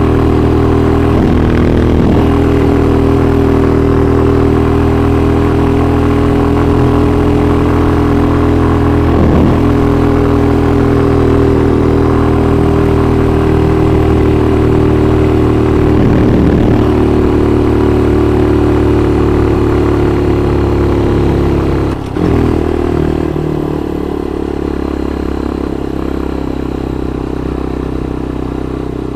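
Motorcycle engine running steadily while being ridden, its note dipping briefly a few times. About 22 seconds in the engine note breaks off for a moment and then carries on a little quieter.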